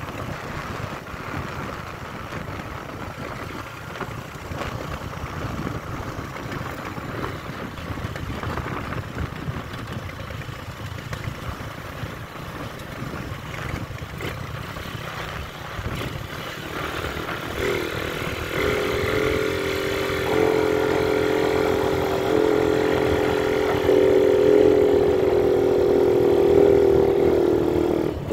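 Motorcycle engine running under way, with wind and road noise. About two thirds of the way in, a louder, steady engine drone comes in and builds toward the end.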